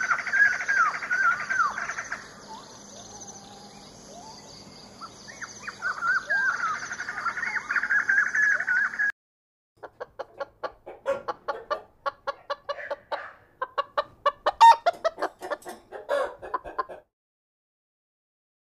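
For the first half, a sun conure gives wavering squawking calls over a faint, high, rhythmic buzz. After a brief gap, hens cluck in quick runs of short, sharp clucks, which are the loudest sounds, before falling silent near the end.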